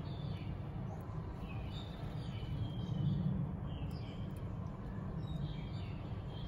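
Small birds chirping off and on in the background over a steady low rumble.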